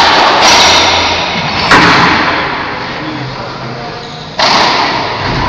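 Racquetball rally: sharp, loud cracks of the racquet striking the ball and the ball hitting the court walls, each ringing out with a long echo in the enclosed court. A hit comes about half a second in, another about a second later, and a third late on after a pause of over two seconds.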